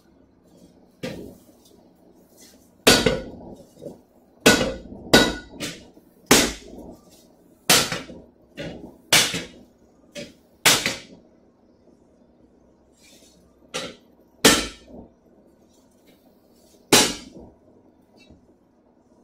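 Hand hammer striking a hot Gallowglass sword blade on an anvil: about a dozen sharp blows at uneven spacing, each ringing briefly, with longer pauses between groups.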